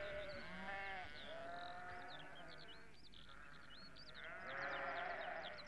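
Three long, wavering animal calls, one at the start, one about a second in and one near the end, with quick high chirps running through the middle and end.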